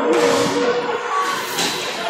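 Ice hockey rink noise: skate blades scraping across the ice in hissing surges, with voices calling out across the rink.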